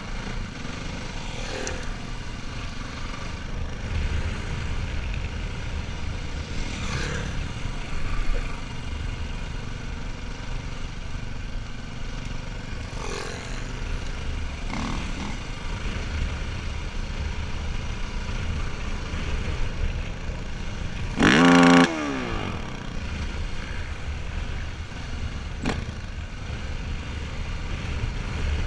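Enduro dirt bike engine running at low speed, heard on board with wind buffeting the microphone. A brief loud sound falling in pitch about three-quarters of the way through.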